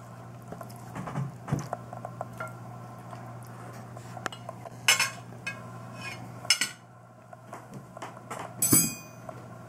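Metal fork and serving spoons clinking and scraping against china plates and a glass baking dish as food is served. There are scattered light clinks and a few louder ones, about five seconds in, at six and a half, and near the end, over a steady low hum.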